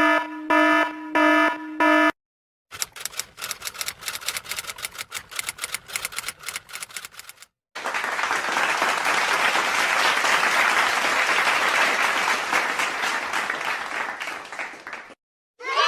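Three sound effects in a row: a pulsed electronic alarm tone sounding about four times, then several seconds of rapid typing clicks, then applause that fades near the end.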